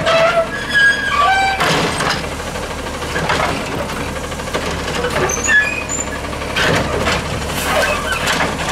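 Garbage truck with a CNG engine running steadily while its Heil DuraPack 7000 automated side-load arm lifts a trash cart, dumps it into the hopper and lowers it. A few short squeals come in the first two seconds, then a series of knocks and rattles, the loudest about five and a half seconds in.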